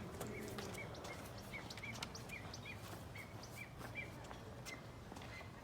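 Faint bird chirping: short high chirps repeated about two to three times a second over steady low background noise.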